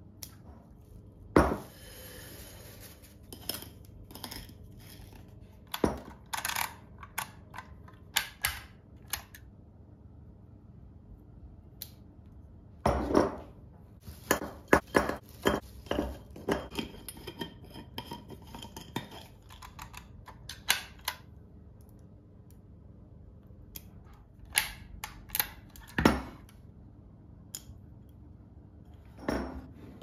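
Glass spice jars with steel lids being handled and set down on a wooden tabletop: a series of sharp clinks and knocks. Near the middle comes a quick run of taps and rattles as cinnamon sticks are dropped into an empty glass jar.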